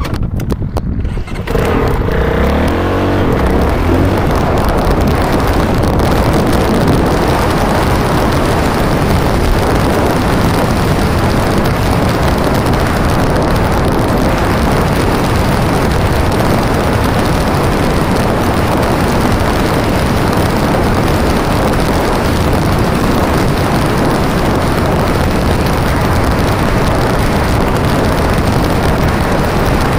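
Dirt bike riding on a sand track: the engine revs up as it accelerates about a second and a half in, then runs loud and steady under load with wind rushing over the microphone.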